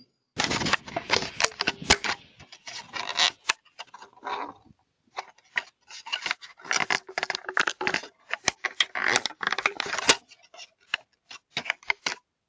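Rapid, irregular clicks, scrapes and rattles close to the microphone, coming in dense clusters and stopping abruptly near the end.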